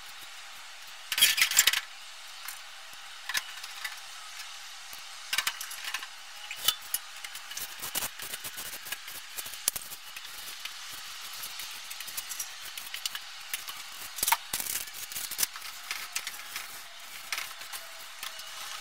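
Hands working on a fan heater's sheet-metal innards: a brief loud rustle about a second in, then scattered light metallic clicks, taps and small rattles as parts are handled.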